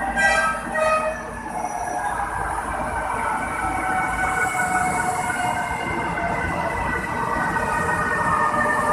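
CKD Tatra light-rail train arriving at a station: two short horn blasts in the first second and a half, then a steady electric motor whine that slowly falls in pitch as the train brakes in, over wheel and track rumble.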